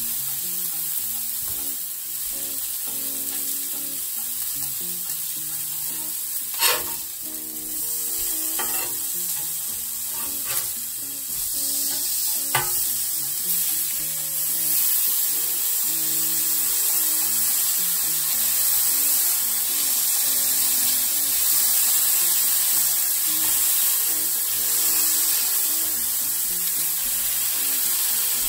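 Ground-beef patties sizzling on a hot cast iron griddle, with a few sharp metal clicks of a spatula about a quarter to halfway in. From about halfway the sizzle gets louder as the patties are pressed flat with a heavy spatula.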